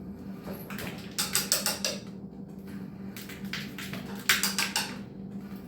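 Ratcheting hand pipe threader clicking in bursts as its oiled die is turned stroke by stroke, cutting threads onto a gas pipe.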